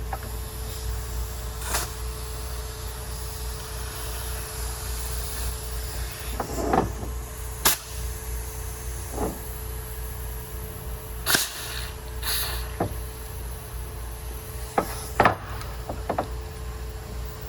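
Steady low rumble of a BMW E92 335i's turbocharged straight-six idling while it warms up. Scattered knocks and clicks are heard over it, the loudest a pair about two thirds and again about seven eighths of the way through.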